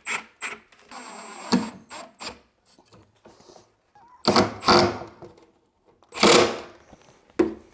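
Cordless impact driver driving screws in several short bursts, the two loudest about four and six seconds in, with clicks and knocks of the work between.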